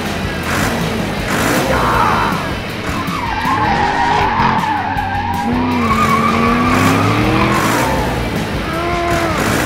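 Squealing, skidding vehicle sound effects whose pitch wavers and slides up and down, over background music.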